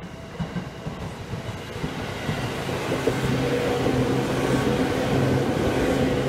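A Seibu 10000 series 'New Red Arrow' resistance-controlled electric train running past close by. Its noise builds over the first few seconds into a steady drone with a few held low tones.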